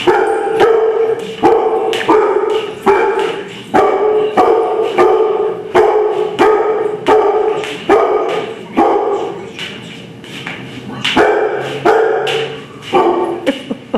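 A dog barking over and over at a steady pace, about three barks every two seconds, with a short break about ten seconds in: a frightened dog's alarm barking.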